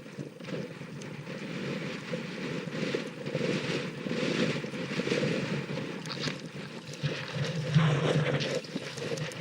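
Strong wind rushing over the microphone with water rushing and splashing, swelling and easing in gusts.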